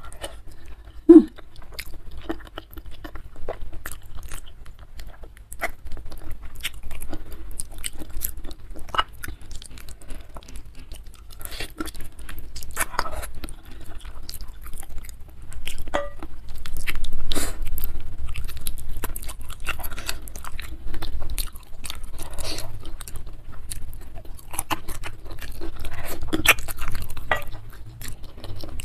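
Close-miked chewing and wet mouth sounds of a person eating by hand, with many small irregular crunches and clicks and one sharp loud click about a second in.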